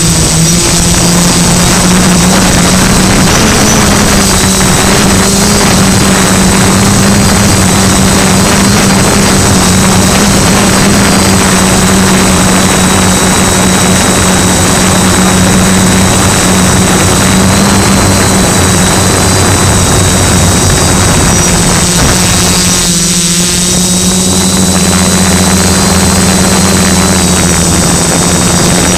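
Multicopter's electric motors and propellers running steadily, heard loud and close through the onboard camera, a buzzing hum with a rushing noise over it. The pitch shifts and briefly falls away about 23 seconds in.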